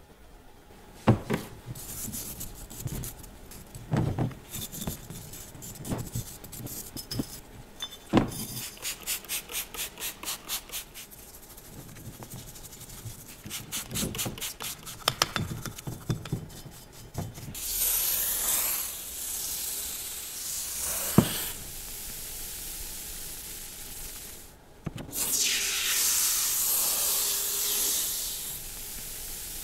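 Hand cleaning of starter-motor metal parts: a series of rubbing and scraping strokes, at one point a fast run of about three strokes a second. In the second half an aerosol can sprays in two long hissing bursts.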